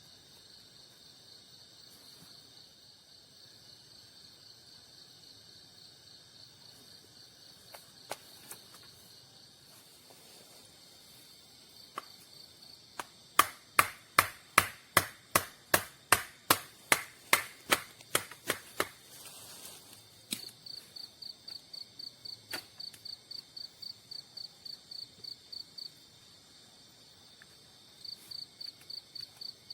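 Night forest insects chirping in a steady high pulsing trill. Partway through, a loud run of sharp clicking calls comes about four a second for several seconds. Then a rhythmic high chirping sets in, breaks off briefly and starts again near the end.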